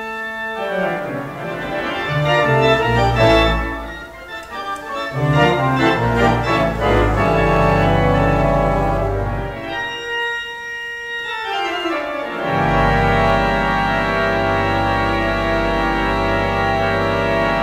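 Two-manual, nine-rank Wurlitzer theatre pipe organ playing a TV theme tune: held chords over deep pedal bass notes. A little past halfway the bass drops out for a couple of seconds, then a full held chord with pedal comes in.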